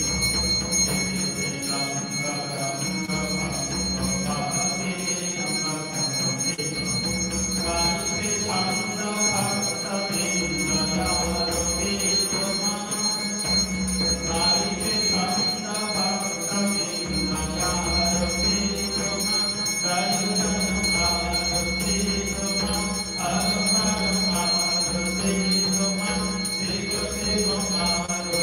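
Temple hand bell rung without pause, its ringing tones held steady, over devotional arati music: a changing melody above a steady low drone.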